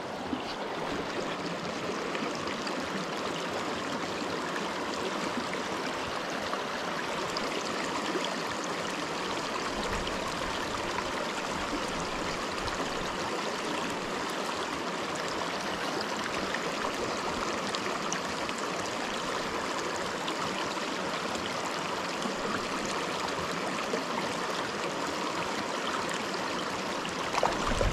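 Small mountain freestone creek running over rocks and riffles: a steady, even rush of water.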